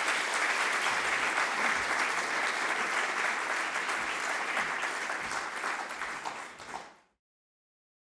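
Audience applauding: a dense, even patter of many hands clapping that fades and then stops abruptly near the end.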